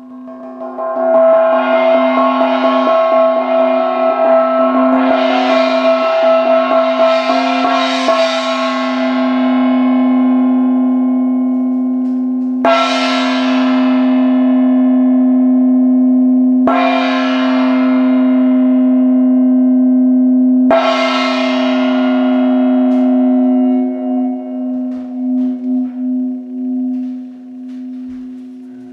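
Small hand-held chau gong played with a padded mallet. A rapid roll of soft strokes swells its ringing for about eight seconds, then three single strikes about four seconds apart each ring on over a steady low hum. Near the end the ring wavers in loudness as the hanging gong turns on its cord.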